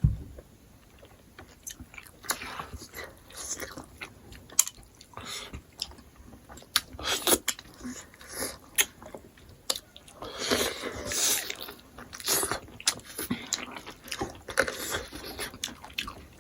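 Close-up sounds of people chewing and biting into smoked pork, with many short, sharp crunches and clicks.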